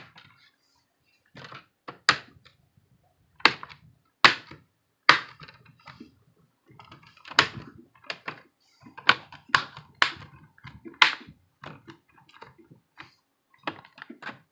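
Plastic snap clips of an HP 2000 laptop's screen bezel clicking into place as it is pressed down around the edge: over a dozen sharp clicks, irregularly spaced.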